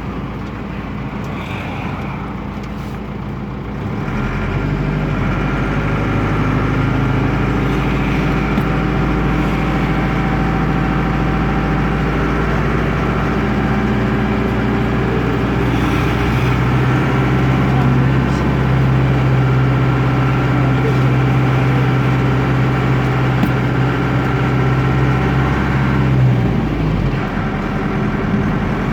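Air-cooled Deutz F4L912 four-cylinder diesel of an Otokar M-2000 minibus pulling under load on a hill climb. It gets louder about four seconds in, holds a steady strong drone, then eases off near the end.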